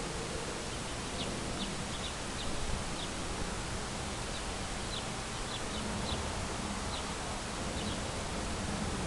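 Steady outdoor background hiss with small birds chirping faintly: a dozen or so short, high chirps scattered through.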